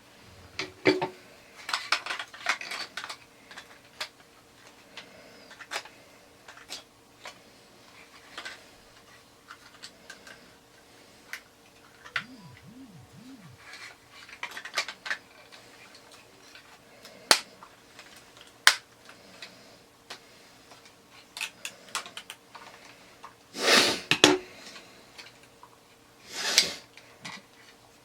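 Scattered clicks and clacks of plastic and die-cast metal toy robot parts being handled and snapped together, with two louder scraping rustles near the end.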